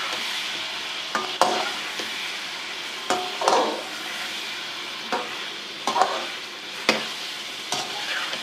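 Chicken pieces with ginger-garlic paste sizzling in hot oil in a pan, with a steady hiss. A spoon scrapes and knocks against the pan every second or so as the mixture is stirred and browned.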